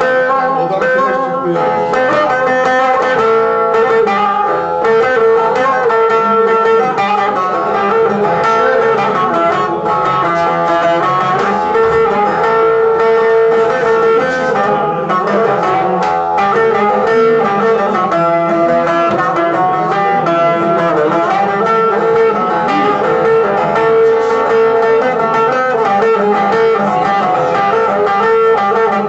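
A plucked string instrument playing a continuous instrumental melody for a Turkish ilahi, with no singing.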